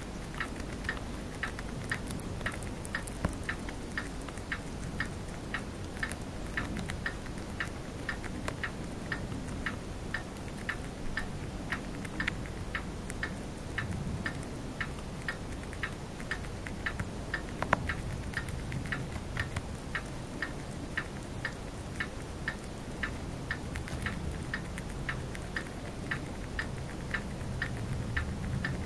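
Chinese dwarf hamster chewing a crisp green leaf: a fast, even run of small crunching clicks, about four a second, over a low steady room hum.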